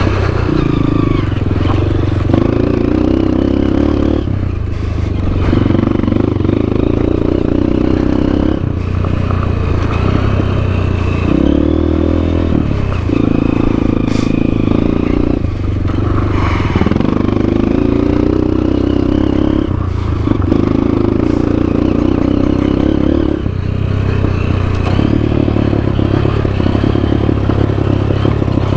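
Honda CRF230F dirt bike's four-stroke single-cylinder engine pulling under throttle, its pitch held for a few seconds at a time and then dipping and climbing again as the throttle is rolled off and on, with a clear rising rev about a third and again about halfway through.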